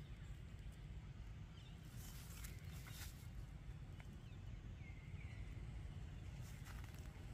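Quiet outdoor ambience with a steady low rumble, scattered light crackles and taps, and a few faint short high chirps around the middle.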